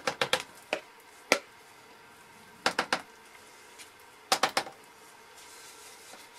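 Spatula tapped against a soap mold to knock off leftover soap batter. The sharp taps come in small groups: a cluster at the start, two single taps in the first second and a half, then groups of three to four a little under 3 s and around 4.5 s in.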